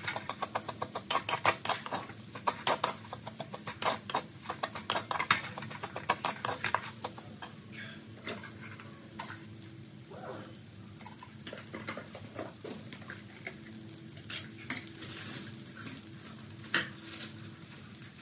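Wooden spatula scraping and knocking against a metal wok as fried rice is stirred and tossed. The rapid clicks go on for about seven seconds, then give way to a quieter stretch with only a few scattered taps.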